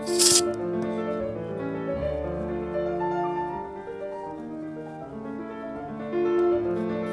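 Background piano music with a slow run of held notes, after a brief noisy rattle at the very start.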